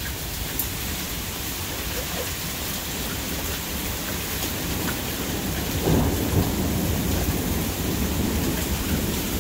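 Steady rain falling during a thunderstorm, with a low rumble of thunder starting about six seconds in and rumbling on through the rest.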